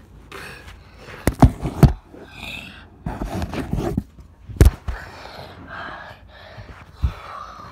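Handling noise from a handheld camera being moved about: irregular knocks and bumps with rustling, scraping sounds between them.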